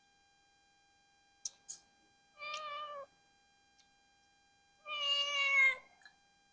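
A cat meowing twice, the second call longer and louder than the first, with a couple of light clicks just before the first call.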